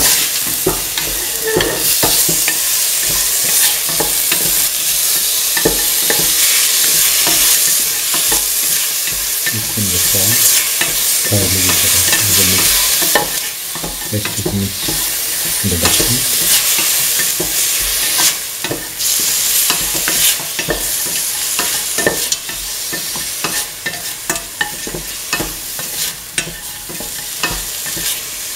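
Duck meat, shallots and garlic sizzling in hot oil in a metal pan while a spatula stirs them, knocking and scraping against the pan in frequent clicks. This is the sauté stage before water is added. The sizzle softens somewhat in the second half.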